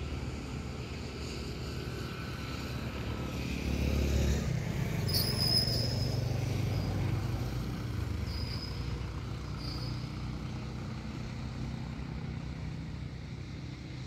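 Road traffic: engine rumble of passing vehicles, a car and a motorcycle among them, swelling about four seconds in and then slowly fading, with a few short high-pitched squeaks in the middle.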